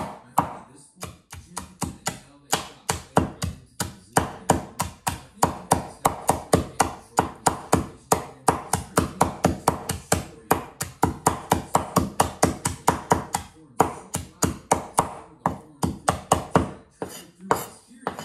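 Meat cleaver chopping crispy fried pork (lechon kawali) on a wooden cutting board: rapid knocks of about four a second, with a few short pauses.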